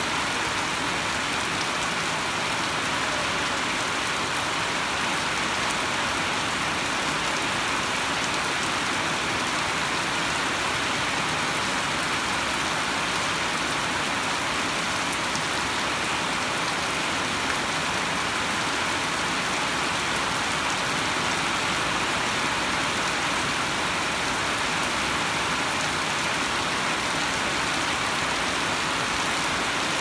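Heavy rain falling steadily, an even hiss with no let-up.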